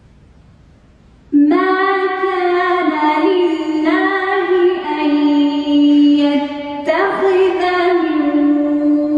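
A woman's voice chanting Quranic recitation in Arabic, melodic and unaccompanied, in long held notes that rise and fall. It begins about a second and a half in, after a pause.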